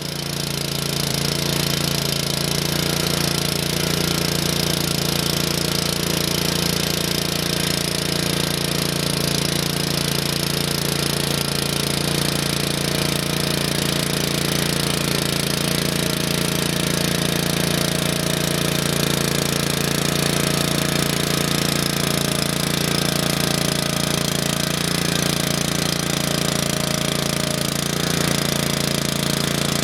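Petrol rotovator's small engine running steadily under load as it tills the soil.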